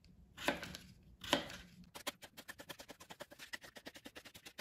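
Kitchen knife slicing a peeled raw potato into thin slices on a plastic cutting board: two separate cuts, then from about halfway a fast, even run of about nine knife taps a second on the board.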